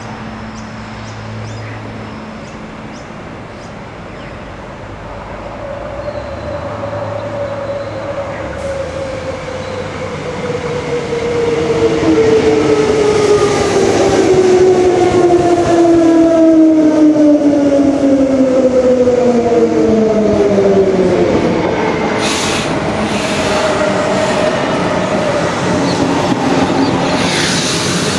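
Electric multiple-unit commuter train arriving, getting louder as it comes in. The whine of its electric traction motors falls steadily in pitch as it slows into the platform. Short bursts of hiss come near the end.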